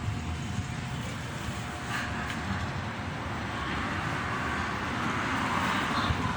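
Solaster Acapulco Plus 60 cm wall fan running, a steady rush of air from its blades.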